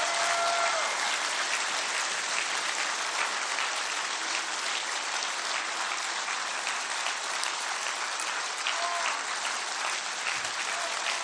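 Large crowd applauding steadily, the clapping easing off slowly toward the end.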